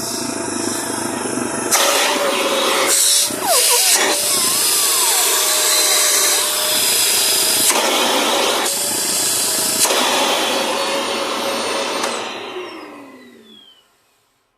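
Karaca Vantuz V4 bagless cyclonic vacuum cleaner running with a steady whining rush, its sound shifting a few times as it works. About twelve seconds in it is switched off and the motor winds down, falling in pitch until it stops.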